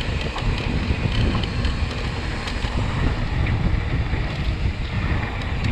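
Wind rushing and buffeting over the microphone of a camera on a mountain bike moving downhill at speed, with scattered faint clicks and rattles.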